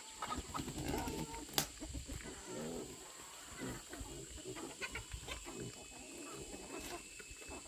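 Farm animals making short, irregular calls and feeding noises, with one sharp click about one and a half seconds in.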